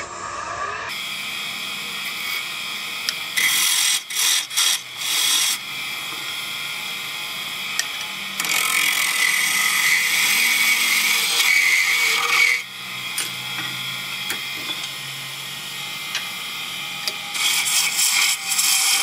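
A lathe tool cutting into wood spinning on a wood lathe at about 1400 rpm: a steady scraping of shavings coming off, starting about a second in, with a few short breaks about four to five seconds in and a brief dip later on.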